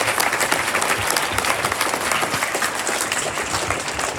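Large audience applauding: many hands clapping at a steady level.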